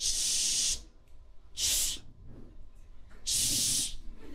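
A man making a hissing "shhh" three times into a microphone, each under a second, imitating the rush of a river.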